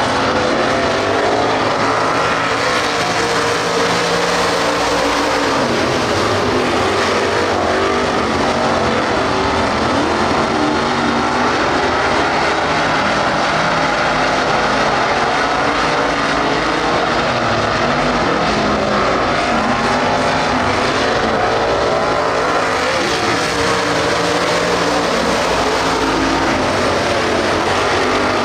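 A pack of dirt-track street stock race cars running hard around the oval, several engines at once, their pitch rising and falling as the cars go through the turns and down the straights.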